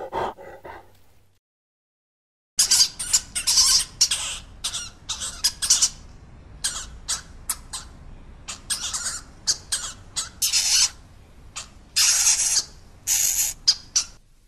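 Hamster running on a plastic saucer wheel, the spinning disc giving irregular bursts of scratchy rattling and scraping, starting about two and a half seconds in. A short, fainter animal sound comes at the very start.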